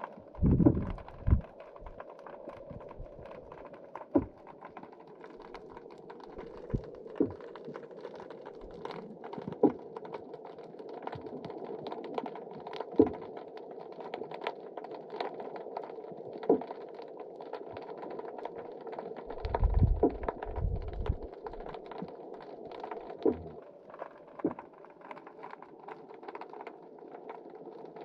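Underwater sound picked up by a GoPro in its waterproof housing: a steady muffled hum with scattered clicks and crackles throughout, and low rumbles near the start and about two-thirds of the way in.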